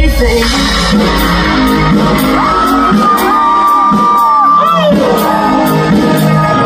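Loud live pop music over a festival PA, heard from the crowd. The bass beat thins out for a couple of seconds midway while a long held high note with short pitch glides sounds, with shouts and whoops in the mix.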